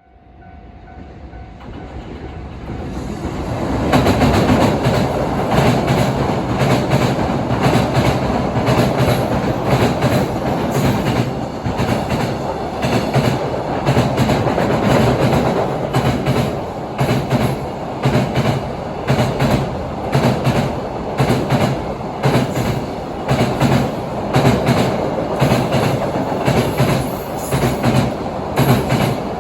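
Train passing close by, its wheels clacking over rail joints in a steady rhythm. It grows louder over the first few seconds, then stays loud.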